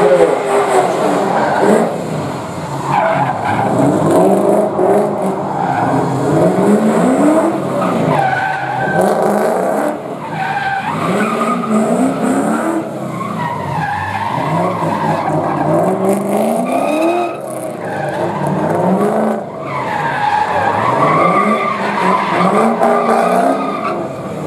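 Drift car's engine revving hard, its pitch climbing and dropping again and again with the throttle, over steady tyre squeal as the car slides sideways.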